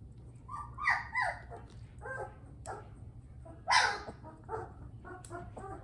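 Three-week-old Bernese Mountain Dog puppy yelping and whining in a string of short, falling cries, the loudest about four seconds in, as it fusses at being handled for nail clipping.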